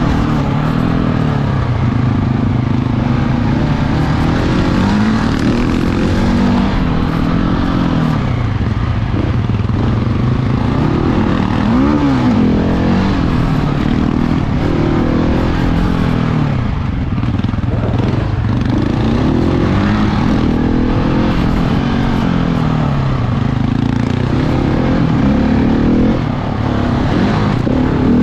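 Large single-cylinder off-road motorcycle engine being ridden, its pitch rising and falling again and again as the throttle is opened and closed.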